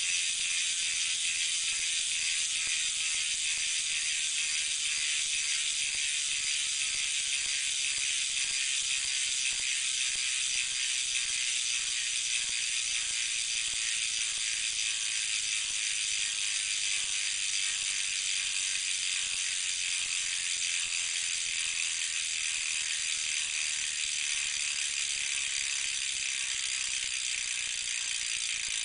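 Hadley bicycle hub's freehub ratchet clicking rapidly and steadily as the wheel freewheels, the fast pawl clicks running together into a loud buzz.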